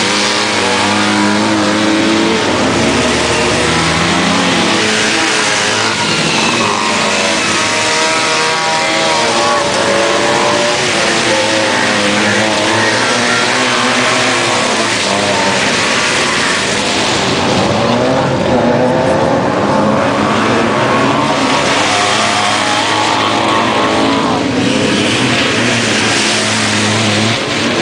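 Several Trabant race cars with two-stroke engines revving hard as they race through a dirt-track corner. The engine notes rise and fall over one another.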